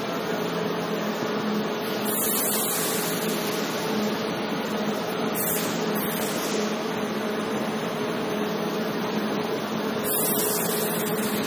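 Steady hum of running machinery at a brick tunnel kiln, with a constant motor tone, and a short hiss about two, six and ten seconds in.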